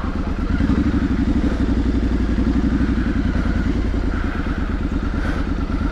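Triumph Street Scrambler 900's 900 cc parallel-twin engine running steadily under light throttle while riding in town. It rises a little in level about half a second in.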